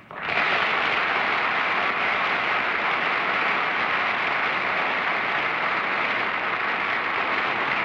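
Studio audience applauding, starting suddenly and holding steady.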